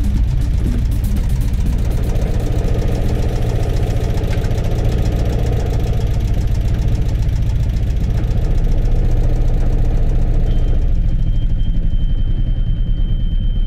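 Small sailboat's freshly overhauled engine running steadily at low speed as the boat motors through the harbour. A thin steady high tone joins about ten seconds in.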